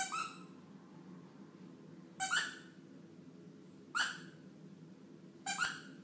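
A dog giving four short, high-pitched yelps, about two seconds apart.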